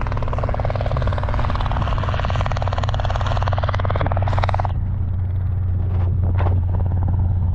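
Small helicopter coming in to land, its rotor chopping fast over a steady low engine hum. About four and a half seconds in, the higher chopping sound drops away abruptly, leaving the low hum.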